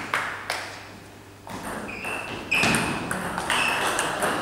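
Table tennis rally: the celluloid ball clicking off the bats and pinging on the table, a quick run of sharp clicks that starts about a second and a half in.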